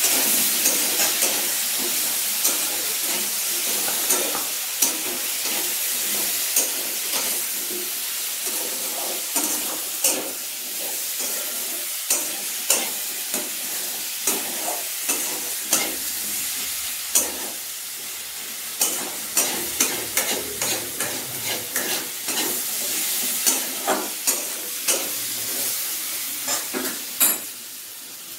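Continuous sizzling hiss with many sharp crackles and pops, like food frying in hot oil; it eases off near the end.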